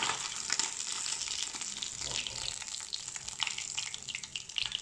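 Fish pieces frying in hot oil in a small wok, with a steady sizzle full of small crackles.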